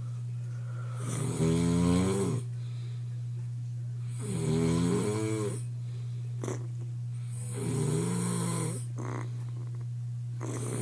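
A person snoring hard: three long pitched snores about three seconds apart, with a fourth beginning near the end, over a steady low hum.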